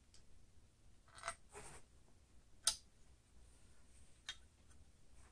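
Quiet handling of a small trim piece being fitted into a Kirby Sentria's polished metal fan case cover. There is a soft rustle, then one sharp click about midway and a smaller click later.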